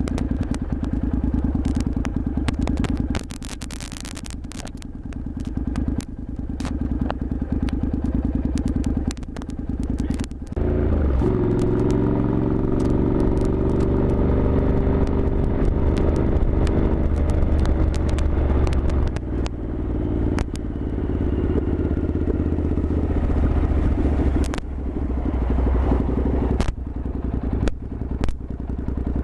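Motorcycle engine idling while stopped, with sharp clicks and rustling handling noise on top. About ten seconds in, the engine revs up and the bike pulls away, then runs steadily under way.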